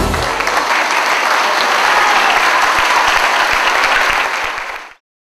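A roomful of people applauding, many hands clapping together; the applause fades quickly and cuts off about five seconds in.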